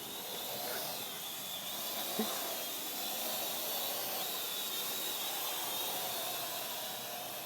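Parrot AR.Drone quadcopter's four propellers whining in flight, a steady hiss with a high whine whose pitch wavers as the motors work against the wind.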